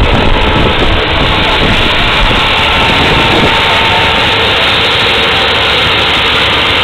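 Engine noise running steadily and loudly, from a sport ATV stuck deep in a mud pit with an excavator working beside it.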